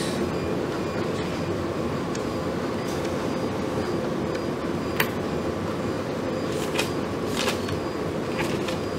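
Stirrer motor of a self-stirring BOD dissolved-oxygen probe running steadily in the sample bottle while the oxygen reading settles, with a few light clicks.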